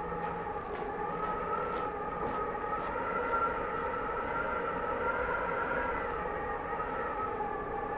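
Cold winter wind howling, a whistling moan in several tones that slowly waver up and down in pitch. Faint footsteps at about two steps a second in the first few seconds.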